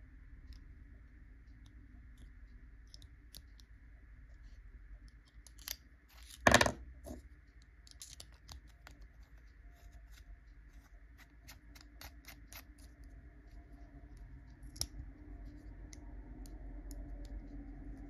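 Parts of a Rotring 800 metal mechanical pencil being fitted together and handled: light clicks and scrapes, one sharp, louder click about six and a half seconds in, and a quick run of small clicks after it.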